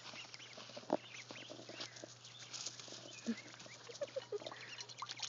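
Young ducks calling with many short high peeps and a few lower, quack-like notes, over scattered light clicks, with one sharp knock about a second in.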